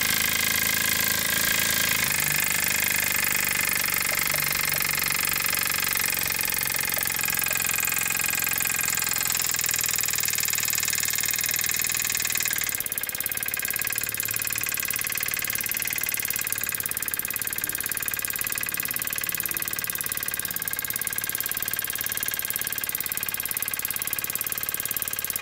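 Small oscillating model steam engine in a walking-cane handle running fast on compressed air, its rapid exhaust beats merging into a steady buzzing chatter. It eases a little about halfway through as the air pressure is turned down toward about 2 psi.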